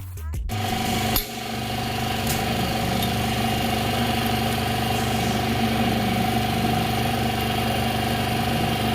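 TVS Raider 125's single-cylinder engine coming in about half a second in, with a brief louder blip just after, then idling steadily.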